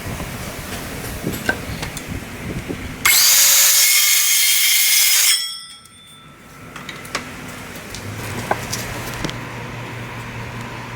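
A circular saw cutting a 2x4, very loud for about two seconds with a high whine, then winding down. Before it come scraping and knocking of wood being handled. Later a steady low hum sets in.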